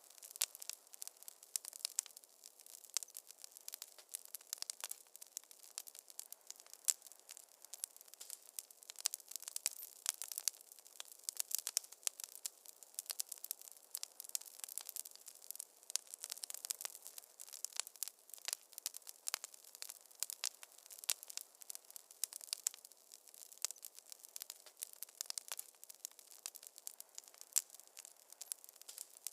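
Wood fire crackling in a fireplace: a dense, unbroken stream of sharp pops and snaps over a faint hiss.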